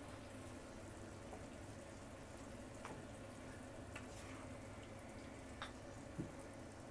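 Faint simmering of ginger pork and onions in their sauce in a frying pan, with a few light clicks of a spatula against the pan.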